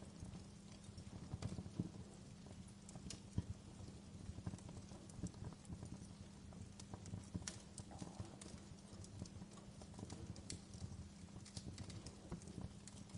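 Wood fire crackling: irregular sharp pops and snaps, a few louder ones, over a low steady rumble.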